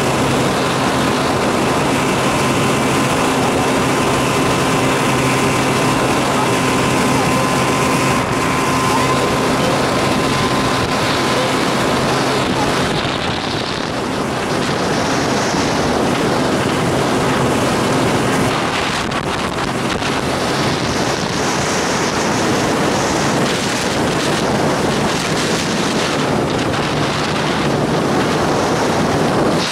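Outboard motor running at a steady speed, with wind buffeting the microphone and water rushing past the hull. About two-thirds of the way through, the engine tone drops away, leaving wind and water noise.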